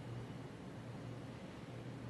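Steady low hum with a faint even hiss from an air conditioner running in a small room.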